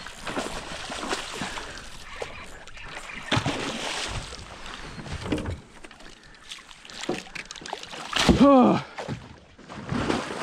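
Water splashing and knocks against a kayak as a hooked snakehead thrashes at the side. Near the end a man's voice gives a short exclamation that falls in pitch.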